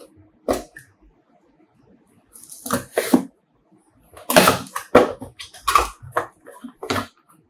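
Cardboard packaging inserts and paper being handled: short scrapes, rustles and knocks as flaps and dividers are pushed and lifted. They come in a few quick groups, busiest in the second half.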